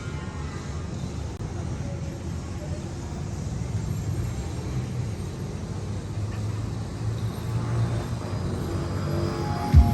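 Steady low rumble with a faint hiss above it; just before the end comes a single deep thump.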